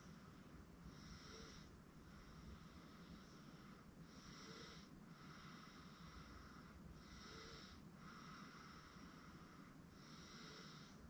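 Faint, slow breathing with light snoring from a sleeping 8-month-old baby, each breath swelling roughly every three seconds, over a steady low background hum.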